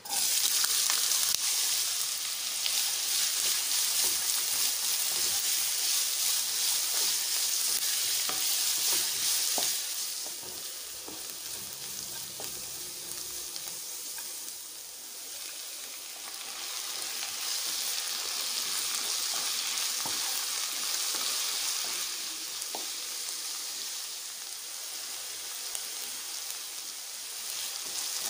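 Chopped onions dropped into hot oil in a nonstick kadai, sizzling loudly as soon as they land. They are stirred with a spatula; the sizzle eases after about ten seconds and swells again for a while later on.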